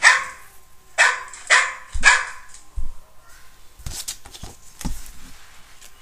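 A dog barking, about four short barks in the first two seconds, followed by a few fainter clicks and knocks.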